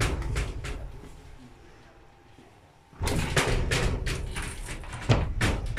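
A run of short knocks and rustling that fades out over the first second, then starts again suddenly about three seconds in over a low rumble. This is handling noise from a handheld camera.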